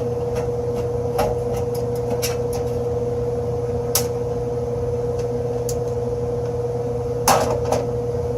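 Steady hum of running air-conditioning equipment with a constant whine, overlaid by a few sharp clicks and knocks from handling the unit, loudest near the end.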